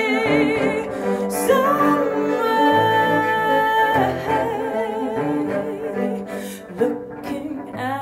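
A woman's voice singing wordless held notes with vibrato over a bowed cello playing low sustained notes, a live voice-and-cello duet.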